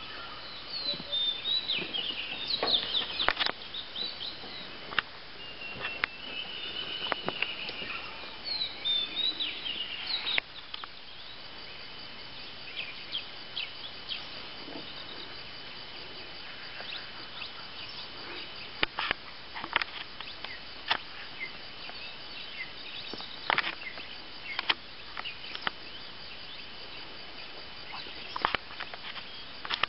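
Forest ambience: birds chirping and calling for the first ten seconds or so, over a steady high thin insect tone, with scattered sharp clicks.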